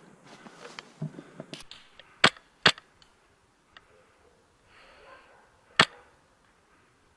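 Airsoft gun firing three sharp single shots: two in quick succession a little over two seconds in, then one more near the end, with softer clicks and rustling of gear before them.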